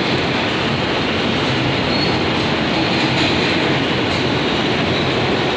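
Inside an R160A subway car running through a tunnel: the steady noise of the wheels on the rails and the car in motion.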